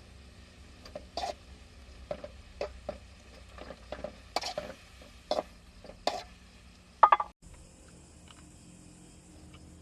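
Irregular light knocks and clicks of objects being handled, a dozen or so spread over several seconds, the loudest a quick double knock about seven seconds in. After that the background changes abruptly and only faint ticks remain.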